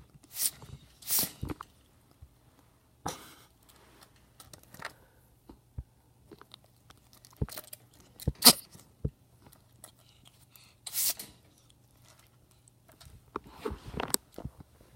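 A ferret with a cold sneezing: short, sharp hissing bursts every few seconds, with small clicks and rustles in between.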